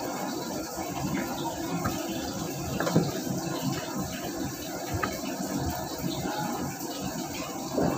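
Steady rushing hiss of kitchen background noise, with a sharp click about three seconds in and a lighter one about five seconds in.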